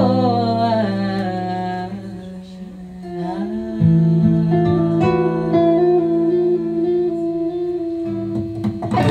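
A woman singing long held notes over a strummed and plucked acoustic guitar, her voice wavering slightly on the held notes; it dips quieter for a moment a couple of seconds in, then swells into a long sustained note.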